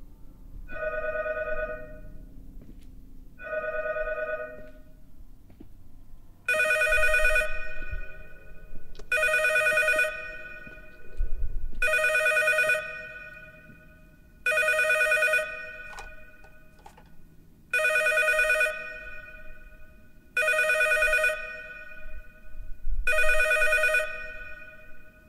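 Telephone ringing over and over, nine rings at an even pace of about one every two and a half seconds. The first three are fainter; from about six seconds in the rings are louder and brighter, with a bell trill. A sharp click comes at the very end.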